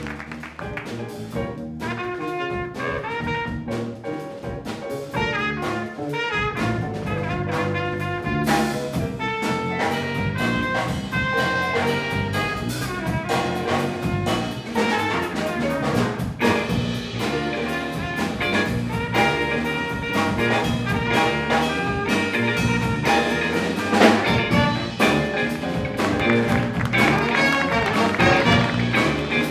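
Jazz ensemble playing live: horn section of trumpets, trombone and saxophones over electric guitar, electric bass, piano and drum kit.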